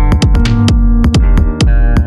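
Electronic music track: a drum-machine beat with deep kicks that drop in pitch and fast, steady ticking hats, over bass and held synth chords.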